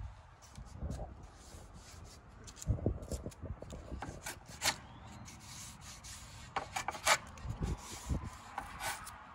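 Small hand block plane shaving wood: short rasping strokes of the blade across a wooden window sash, coming in several quick bursts, as a glued-in Dutchman patch is trimmed flush.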